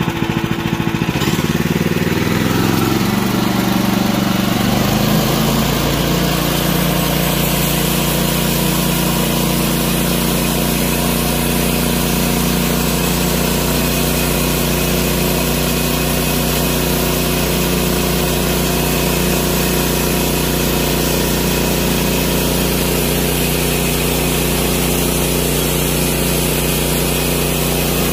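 Woodland Mills bandsaw mill's gasoline engine throttled up from idle about a second in, its pitch climbing for several seconds before settling to a steady full-speed run. From then on the band blade cuts steadily through a red oak log, adding a constant hiss over the engine.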